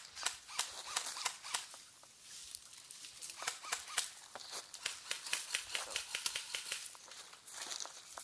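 Footsteps crunching through dry leaves and brush, with irregular crackling and rustling of twigs and undergrowth.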